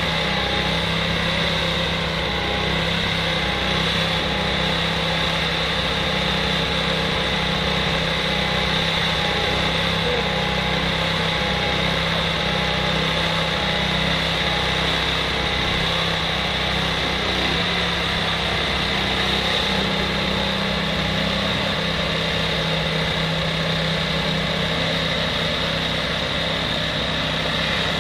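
Diesel engine of a 1999 Kenworth truck idling steadily while it drives the hydraulics of a truck-mounted Hiab knuckle-boom crane being operated.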